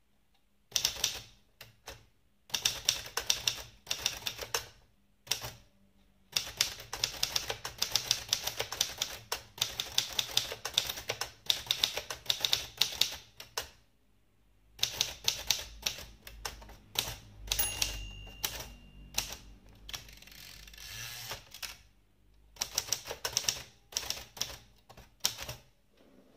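Adler abc 5000 typewriter being typed on: runs of rapid key and typebar clicks broken by short pauses. A brief ringing tone sounds a little past the middle.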